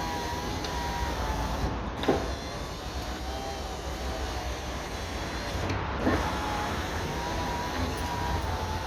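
Power window motor and cable regulator in a 1999 Seat Toledo Mk2's front right door, driving the glass up and down in a steady whine. The whine is broken by three knocks where the run changes direction. It runs smoothly now that the regulator cable, which had been wound wrongly on the motor's drum and was causing a noise, has been rewound.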